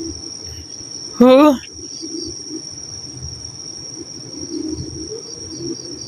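Crickets chirring in a steady, high, unbroken trill. About a second in, a person gives one short, loud moan that wavers up and down in pitch.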